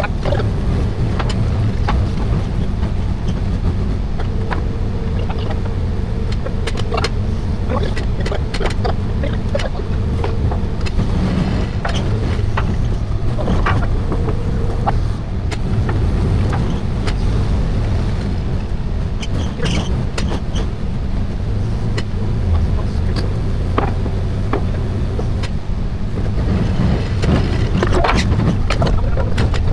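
A running engine, a steady low rumble, with frequent knocks and rattles.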